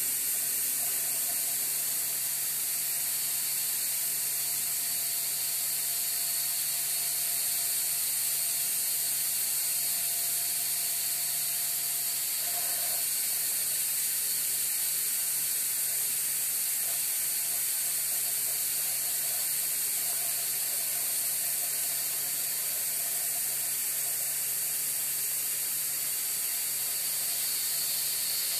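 Steady hiss of compressed air venting from the air bearings of an air-bearing 3D printer gantry. Underneath it are a low hum and a faint whine as the carriage creeps along its ball screw.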